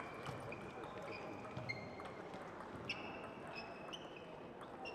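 Table tennis balls striking tables and rackets: a string of irregular sharp clicks, many with a short, high ring.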